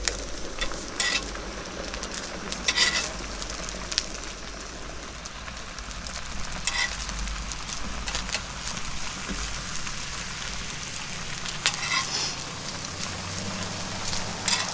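Hot water pouring from a camp percolator into a French press of coffee grounds: a steady splashing hiss, with a few short, sharp high sounds scattered through it.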